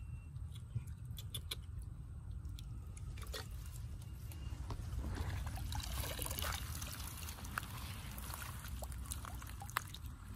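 Water trickling and splashing as a woven bamboo scoop basket is handled and lifted out of shallow paddy water and a person wades through it, busiest about halfway through, over a steady low rumble. A few sharp clicks come in the first two seconds.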